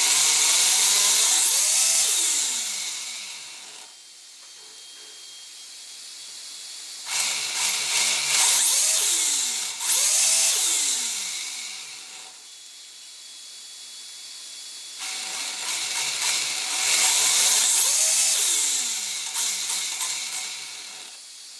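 Brushless motor of a 1/10 RC drift car, driven by a Furitek SlideTech Pro ESC, revved in three bursts, its whine gliding up and down in pitch. In the quieter gaps between the revs the ESC's small cooling fan whirs.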